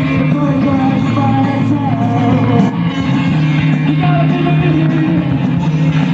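Post-punk rock band playing live, with electric guitar, bass and drums under a man singing lead vocals.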